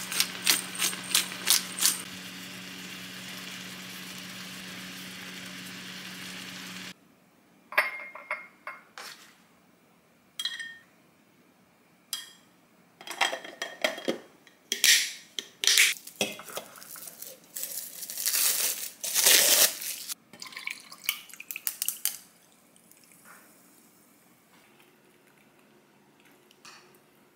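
A quick run of sharp clicks as pepper is added over a pan of simmering red fish-cake broth, with a steady hum and hiss that cuts off abruptly about seven seconds in. Then come scattered clinks and knocks of a glass food-storage container and ceramic dishes as pickled radish is plated, busiest in the second half.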